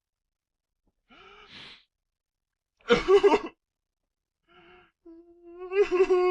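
Teenage boy crying: a faint breath, a loud gasping sob about three seconds in, then a long wailing cry that starts near the end.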